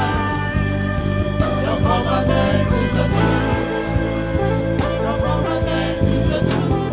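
Live church band music with sustained keyboard chords, bass and drums, and a faint sung line.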